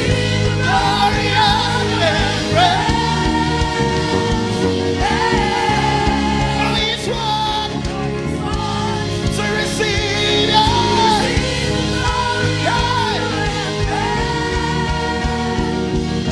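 Gospel worship song: a voice sings long held notes with vibrato over a steady band accompaniment.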